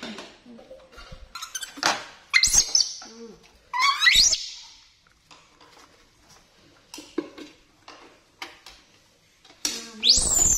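Pet monkey giving short, high-pitched squeals that rise in pitch, three times: about two and a half seconds in, around four seconds, and near the end. Light knocks and clicks come and go between them.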